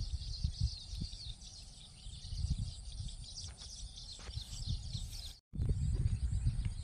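Open-air ambience: wind buffeting the microphone as an uneven low rumble, with many short high-pitched chirps of small birds and insects over it. The sound drops out completely for a split second a little over five seconds in.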